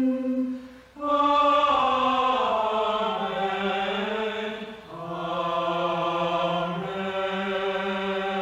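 Slow sung chant: long held notes in phrases that glide gently from pitch to pitch, with short breaths about a second in and again about five seconds in.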